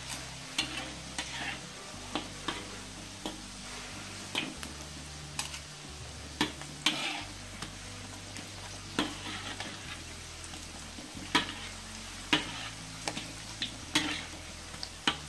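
Corn and shrimp fritters deep-frying in oil in a wok, with a steady sizzle. Over it come repeated sharp clicks and scrapes of a metal skimmer and spatula against the wok as fritters are turned and lifted out to drain.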